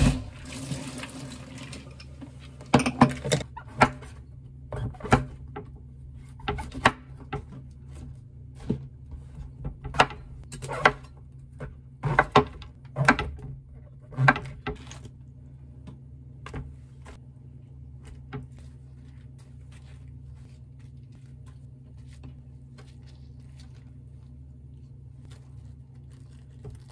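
Cleaver chopping king oyster mushrooms on a wooden cutting board: irregular sharp knocks for about the first fifteen seconds, then only a low steady hum while the cutting stops.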